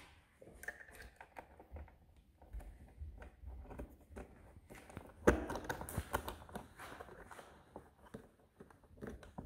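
Faint handling clicks and taps of a bolt and a metal exhaust silencer being worked by hand into the silencer's mounting bracket, with one sharper click about five seconds in.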